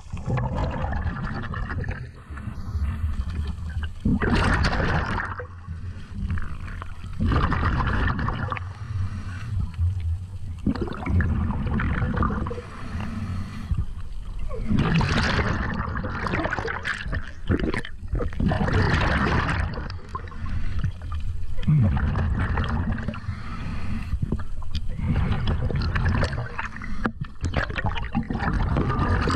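Muffled water noise heard underwater through a diver's camera housing as a spearfisher swims, rising and falling in surges every few seconds.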